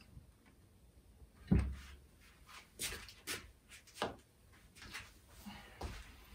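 Handling noise: a dull thump about one and a half seconds in, then scattered light knocks and clicks as objects are moved about.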